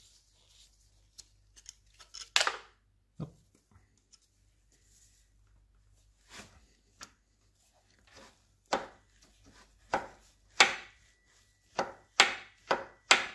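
Irregular sharp knocks and taps of a hand tool working on the steel shaft and gear housing of an old Sajo milling machine's table drive. There are a few scattered strikes at first, then a quicker run of louder ones in the last five seconds. The shaft is not coming free: something still retains it.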